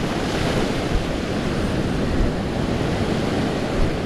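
Small surf waves washing up and draining back over a sandy beach, with wind buffeting the microphone.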